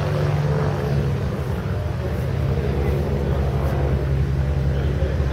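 A piston engine running steadily at a constant speed, giving a low, even rumble.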